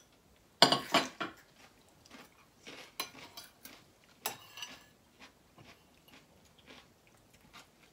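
Cutlery and dishes clinking as people eat: scattered short clinks and knocks, the loudest cluster about half a second to a second in, then fainter ones now and then.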